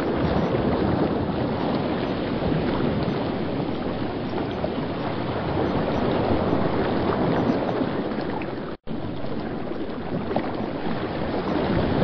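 River rapids: fast water rushing and churning over rocks in a steady, full rush, with a split-second dropout a little under nine seconds in.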